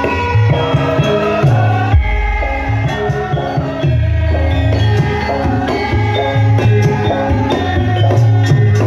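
Javanese gamelan music accompanying a Lengger masked dance: tuned percussion plays a stepped melody over repeated low drum strokes.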